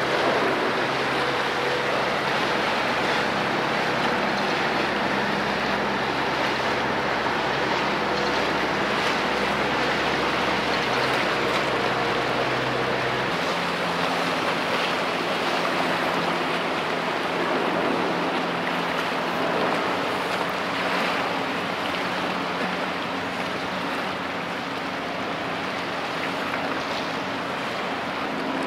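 Steady wind and water noise on the shore of a strait, with a low, steady engine drone from a passing container ship. The drone's pitch shifts suddenly about halfway through.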